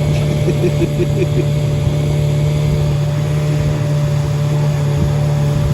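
Old van's engine running steadily: a loud, even drone with a strong low hum.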